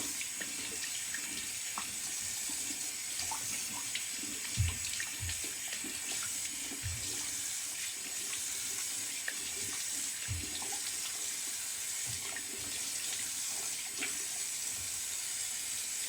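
Cold water running steadily from a tap into a sink for a post-shave cold-water face rinse, with a few soft splashes.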